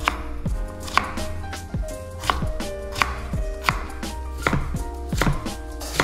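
A kitchen knife chopping on a cutting board in slow, even strokes, about three every two seconds.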